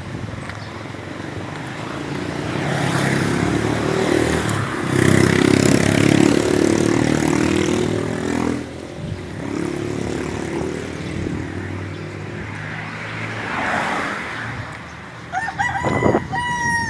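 A motor vehicle's engine passes close by, swelling to its loudest in the middle and fading. Near the end a rooster crows.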